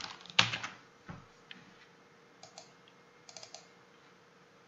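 Scattered clicks of a computer keyboard and mouse: one sharp click just under half a second in, then single clicks and a few short runs of two or three quick clicks. A faint steady hum runs underneath.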